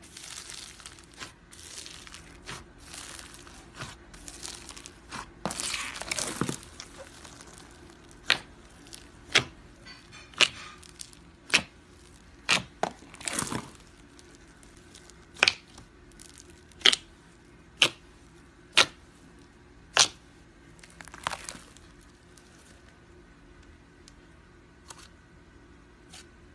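Slime being stretched and squished, crackling and tearing for the first several seconds. Then about a dozen sharp pops, roughly one a second, as the slime is pressed and air pockets burst.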